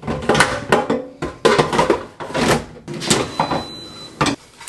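Kitchen clatter as an air fryer basket and dishes are handled: a quick, irregular run of knocks and clicks, with a brief high beep about three seconds in.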